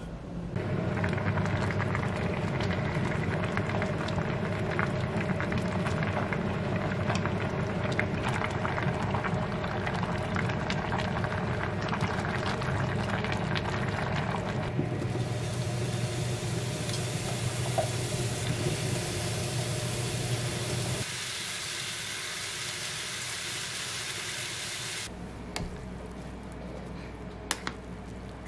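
A pot of kimchi stew boiling on an induction cooktop: a steady bubbling hiss full of small pops. The texture changes abruptly about 15 and 21 seconds in, and it turns quieter with a few light clicks near the end.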